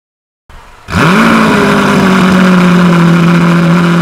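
Lamborghini Aventador S's V12 starting through a custom titanium and Inconel quad-tip exhaust. It fires about a second in, its note sweeps up in a brief flare, then it settles into a steady idle.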